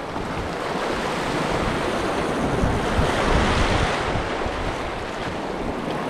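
Sea waves washing and breaking against shoreline rocks, swelling a little about halfway through, with wind buffeting the microphone.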